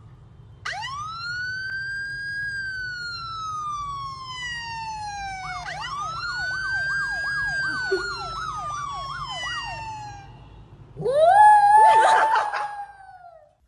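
A recorded police siren: one long wail that rises quickly and falls slowly, then a second wail with a fast yelping warble over it. About eleven seconds in, a small white dog howls in answer, a wavering howl that rises, holds and falls away.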